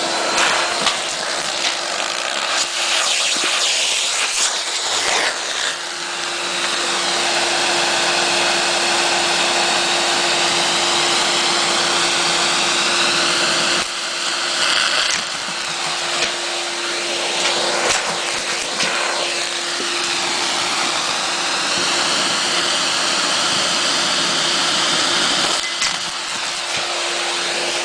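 Vacuum cleaner running steadily as it sucks up loose cassette tape. A constant motor hum sits under a rushing airflow hiss that wavers in pitch as the tape is drawn through the hose.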